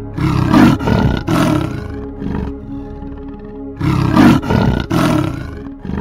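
A big cat roaring in two rough bouts, each a second or so long and made of several strokes, a few seconds apart, over steady background music.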